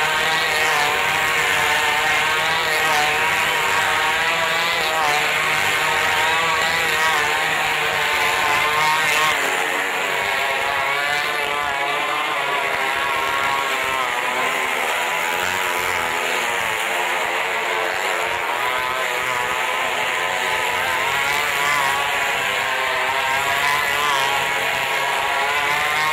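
Small motorcycle engines running hard as the bikes circle a vertical wooden wall. The engine pitch wavers up and down without a break.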